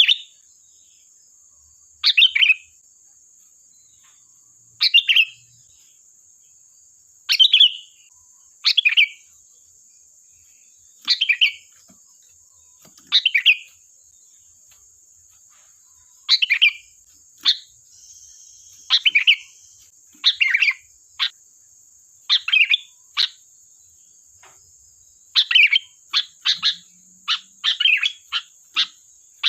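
Sooty-headed bulbul (kutilang) singing short chirpy phrases every two to three seconds, coming faster in close clusters near the end, over a steady faint high hiss.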